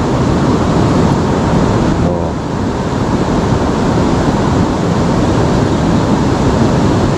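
Shallow river water rushing and rippling around rocks, a steady noise close to the microphone.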